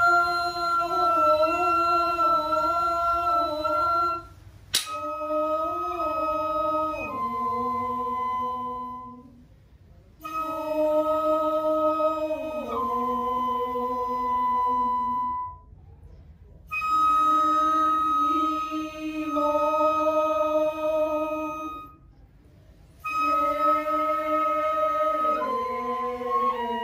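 Shirabyoshi song sung in a woman's register: slow, long-held notes, some with vibrato, each phrase stepping down in pitch at its end, with short pauses for breath between phrases. A single sharp click sounds about five seconds in.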